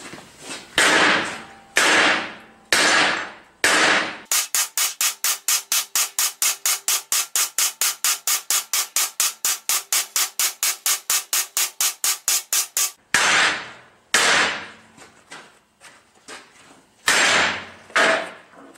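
Hammer blows on steel MIG-welded T-joint test coupons, breaking the fillet welds in a destructive strength test. Four single sharp strikes come first, then a fast, even run of about five strikes a second lasting some eight seconds, then a few more separate clanks near the end.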